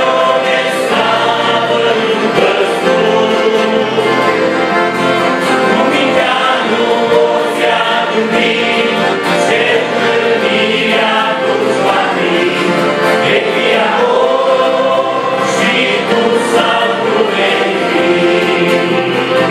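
Men's vocal group singing a gospel hymn in harmony, accompanied by two accordions and an acoustic guitar.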